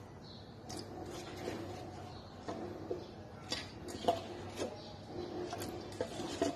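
Pieces of peeled Chinese yam dropped one at a time into a steel pot of water, with about ten short knocks and small splashes, some with a brief ring of the pot or dish.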